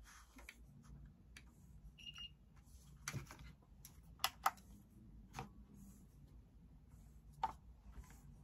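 Faint light taps and clicks of paper cups being handled and set down on a digital kitchen scale, with one short electronic beep about two seconds in.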